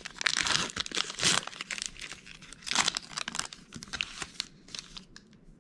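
A trading card pack's wrapper being torn open and crinkled, a dense run of crackles that thins out over the last couple of seconds.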